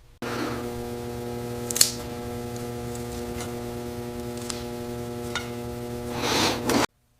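A small electric motor humming steadily at one pitch, with a few sharp clicks and a swell of hiss near the end; it starts abruptly and cuts off abruptly about a second before the end.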